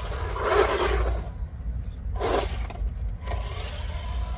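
Small electric RC monster truck driving off in two short throttle bursts, its motor and tyres on asphalt.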